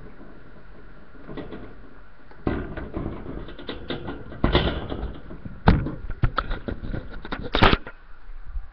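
Handling noise as a phone or webcam is picked up and moved: rustling and clicking that start about two and a half seconds in, with several sharp knocks, the loudest near the end.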